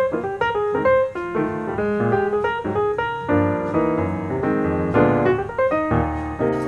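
Background piano music, a quick run of many short notes.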